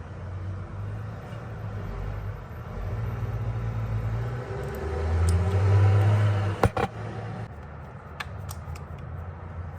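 A road vehicle passing outside, its low engine rumble swelling to a peak about six seconds in and then fading. A few sharp clicks come near the end.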